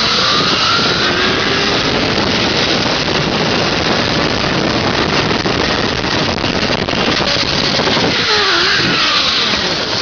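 Zipline trolley pulley running fast along the steel cable, a whirring whine that rises in pitch over the first couple of seconds and falls again about eight seconds in, under a loud steady rush of wind past the microphone.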